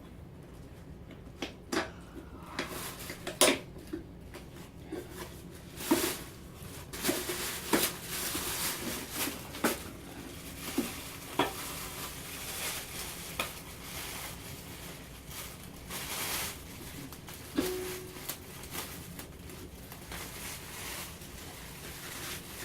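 An electric scooter and its packaging being handled during unboxing: scattered knocks and light metallic clinks, with brief stretches of rustling and one short ringing clink.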